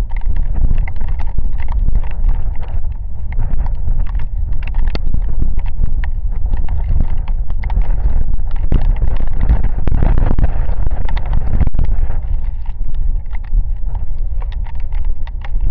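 Rain storm with gusting wind: wind buffeting the microphone makes a loud low rumble that swells in a strong gust about two-thirds of the way through, over dense irregular taps of raindrops landing close by.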